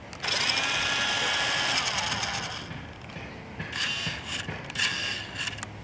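Toy RC buggy's electric drive motor and gearbox whirring as the wheels spin freely in the air. It runs for about two and a half seconds and winds down, then comes two shorter bursts.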